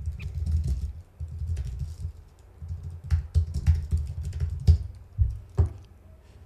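Typing on a computer keyboard: an irregular run of keystrokes, with a couple of louder, harder strikes near the end.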